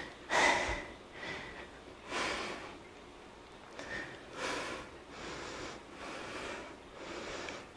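A woman breathing hard and audibly through a workout set of dumbbell tricep kickbacks, with breaths about once a second.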